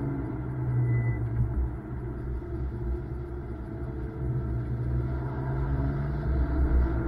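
BMW M2's turbocharged straight-six engine running under load with a deep rumble. The engine eases off and gets quieter in the middle, then builds again near the end.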